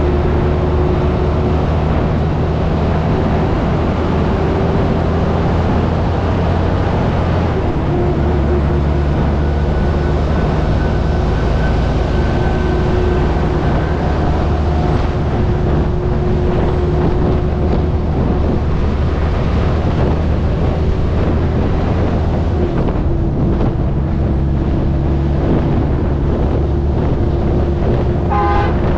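Heavy truck's diesel engine running steadily at cruising speed, with wind buffeting and road noise on an outside-mounted camera's microphone.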